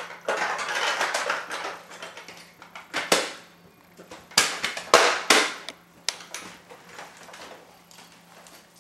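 Plastic Nerf gear being handled: rustling, then several sharp plastic clacks as a dart bandolier and blaster are handled and slung on.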